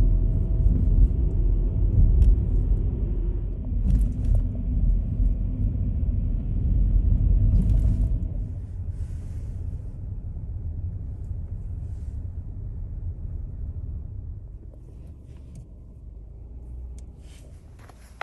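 Low rumbling noise, loud for about the first eight seconds, then dropping off and fading gradually.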